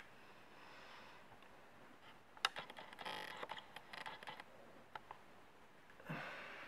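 Soft rustling and crinkling of folded paper as hands open and turn the pleats of a paper Christmas tree threaded on a toothpick, with scattered small clicks, busiest about halfway through.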